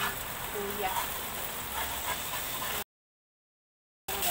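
Food sizzling as it fries in a pan, with light clicks of a utensil stirring. The sound cuts out completely for about a second near the end, then resumes.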